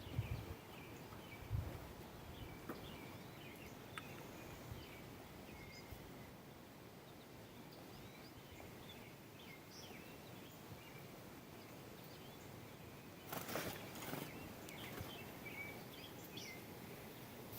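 Faint bird chirps, many short calls scattered throughout, over quiet outdoor background noise. A brief noisy burst about 13 seconds in.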